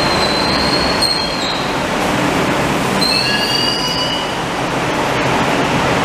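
Madrid Metro train braking to a stop at the platform, with a steady loud rumble. High thin squeals ride on top and fade about a second and a half in, then return for a second or so from about three seconds in.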